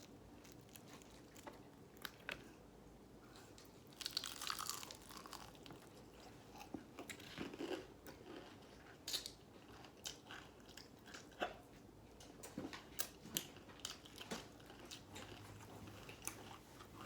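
Close-up crunching and chewing of crispy fried chicken: repeated sharp crackles of the coating as it is bitten, with a longer crunchy bite about four seconds in.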